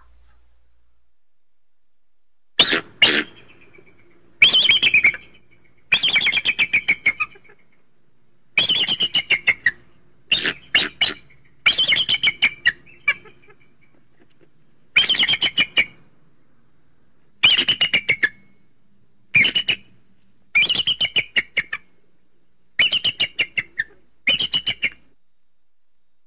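Bald eagle calling: about a dozen bouts of high, rapid chattering notes, each bout up to a second or so long and dropping slightly in pitch, with a second or two between bouts.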